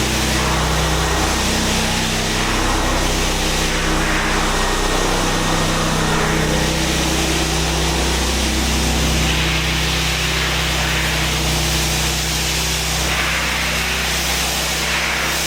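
Concrete floor grinder running steadily on the floor, a constant motor drone under an even grinding hiss.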